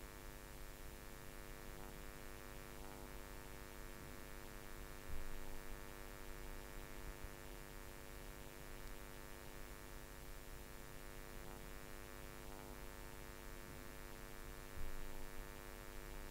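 Faint, steady electrical hum made of several steady tones over a low hiss, with two brief louder sounds, one about five seconds in and one near the end.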